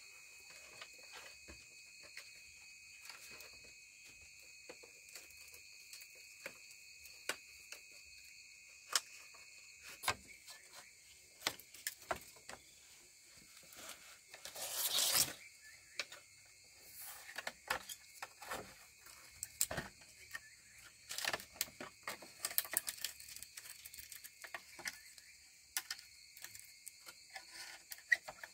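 Steady high-pitched insect chorus, with scattered light clicks and taps and one brief, louder noisy burst about halfway through.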